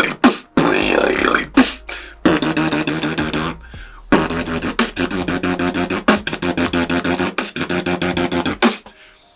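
Beatboxed rhythm: a low, bassy outward lip roll, the lips fluttering as air is blown out between them, combined with sharp snare sounds about once a second. The buzz breaks off briefly a little before the middle.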